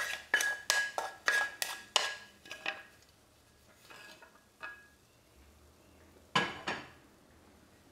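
A wooden spoon scraping and knocking on a metal frying pan as the fried onions, curry leaves and mustard seeds are pushed off into the pot of dahl: a quick run of sharp knocks, about three a second, with the pan ringing, for the first three seconds. A couple of faint taps follow, then a louder double knock about six and a half seconds in.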